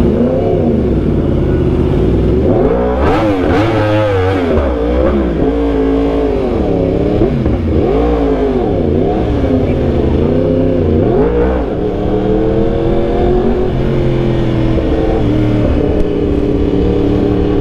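Yamaha R1M's crossplane inline-four through an aftermarket Austin Racing exhaust, revved again and again in quick throttle blips, its pitch rising and falling, then settling into a steadier run for the last few seconds.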